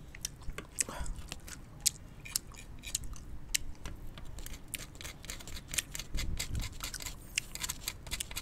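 Many small, sharp, irregular clicks and crackles of a needle picking and scraping at a brittle dalgona sugar candy made from sugar and baking soda.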